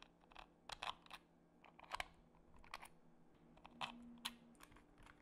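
Scattered light clicks and taps of metal tweezers and small M3 bolts against a 3D-printed plastic car body, with a brief faint hum a little before the end.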